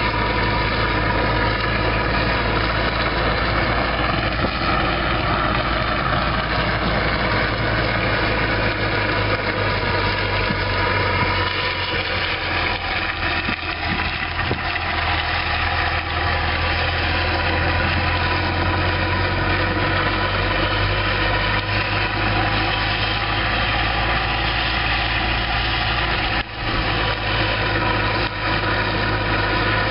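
Vehicle engine running steadily at low revs and an even pitch, with one brief dip in level about three-quarters of the way through.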